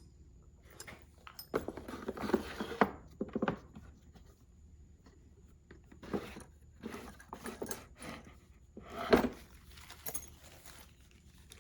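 Small metal tools and parts clinking and rattling as they are picked through by hand in a toolbox drawer, in scattered bursts, with a louder knock about nine seconds in.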